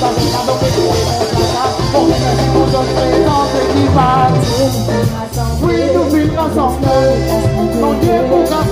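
A live band playing through PA speakers: a singer over drum kit, bass, electric guitar and keyboard.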